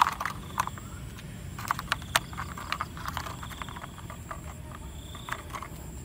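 Plastic toy truck wheels being pushed onto their axles and the plastic chassis handled: a series of small, irregular plastic clicks and taps.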